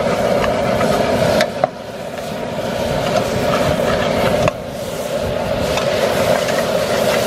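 Outdoor propane burner running with a steady rushing noise under a stainless pot while chicken frying in it is stirred with a metal spoon, with two sharp clinks of the spoon against the pot.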